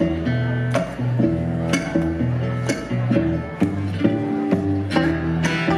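Acoustic string band playing live: strummed acoustic guitar over a plucked bass line, with a sharp accent about once a second.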